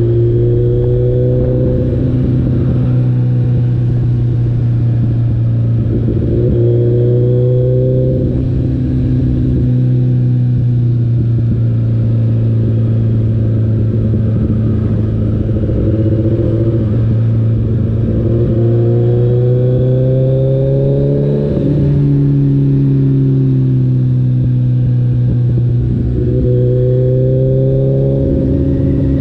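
Sport motorcycle engine running under way, recorded from on the bike; its note rises several times as the rider accelerates, then settles back to a steady cruise.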